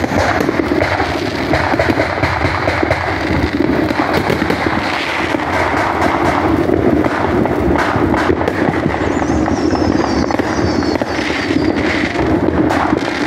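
Blue Charm ground fountain firework spraying sparks with a steady, loud hissing rush, dotted with many sharp crackles and pops from it and other fireworks. A thin falling whistle comes through about nine seconds in.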